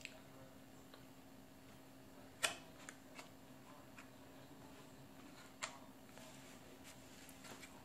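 Quiet eating sounds: two sharp clicks, about two and a half and five and a half seconds in, and a few fainter ticks, over a steady low hum.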